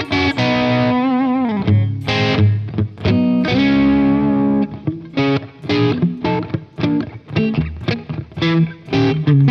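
Overdriven electric guitar, a Telecaster-style guitar through an Origin Revival Drive pedal, playing a lead phrase of picked notes. About a second in, one note is held with vibrato and slides down, and notes ring out around the middle before a run of quicker picked notes.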